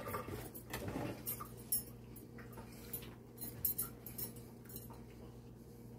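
Vegetables cooking in a covered skillet: faint, irregular ticks and pops of sizzling under the lid, over a steady low hum.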